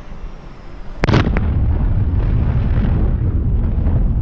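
A sudden loud bang about a second in, with a couple of quick cracks just after it, then a steady heavy rumble.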